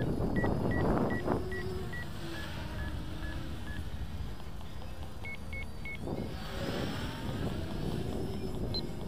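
Distant quadcopter motors and propellers buzzing in flight, with gusts of wind on the microphone near the start and again about six seconds in. Runs of short, high electronic beeps, about three a second, come and go over it.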